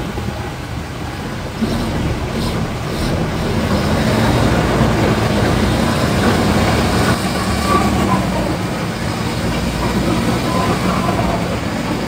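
Toyota Fortuner engine running through its stock exhaust, heard at the tailpipe. The sound gets louder from about two seconds in and then holds steady.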